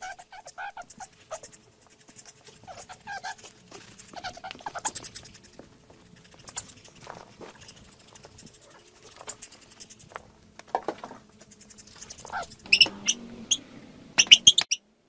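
Rats squeaking: scattered short clicks and brief squeaks, then a quick run of sharp, high squeaks near the end.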